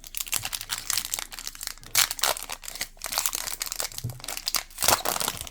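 Crinkling of a plastic trading-card pack wrapper being handled, with sharper crackles about two seconds in and again near the end.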